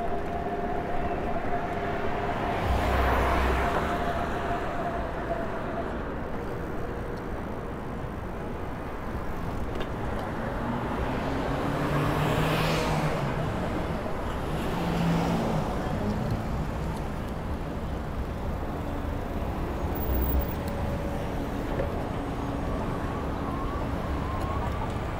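City street traffic: cars and other motor vehicles running and passing over steady road noise, with two louder passing swells about three and twelve seconds in.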